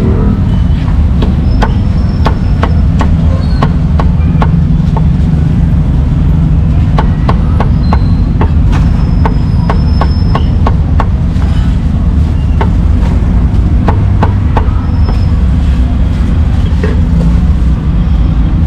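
Meat cleaver chopping roast pork on a round wooden chopping board: runs of quick, sharp knocks with short pauses between them, over a loud, steady low rumble.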